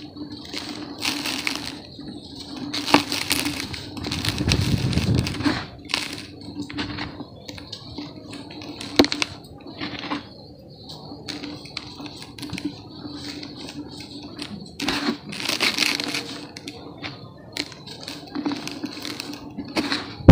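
Dry, packed brown dirt lumps being squeezed and crumbled by hand: irregular gritty crunching with a few sharp cracks as clumps break, and the grains pattering back into a plastic tub.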